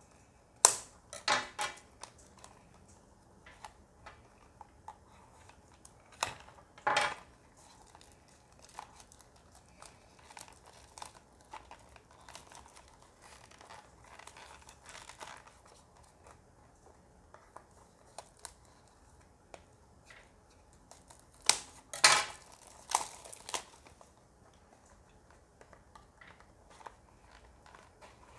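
Plastic shrink-wrap being torn and crinkled off a boxed model by hand, in irregular crackles and rips. The loudest rips come in clusters about a second in, about a quarter of the way through, and about three-quarters of the way through.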